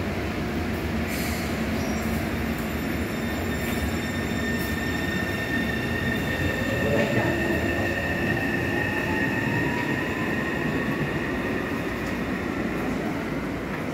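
Taipei Metro C301 train with a retrofitted propulsion system pulling out of the station, with a steady rumble and high wheel squeal. About halfway through, the traction motors' whine starts climbing steadily in pitch as the train accelerates away.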